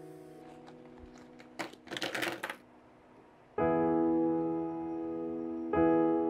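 Background piano music: a held chord fades away, then new chords come in about three and a half seconds in and again near the end. About two seconds in, there is a short burst of rustling with a few sharp clicks.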